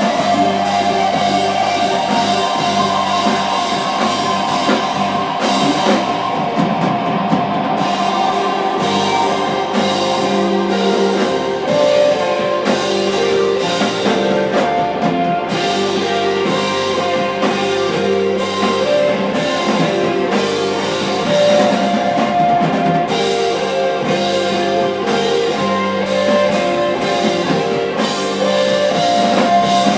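Live rock band playing: electric guitars holding sustained notes over a drum kit with cymbals.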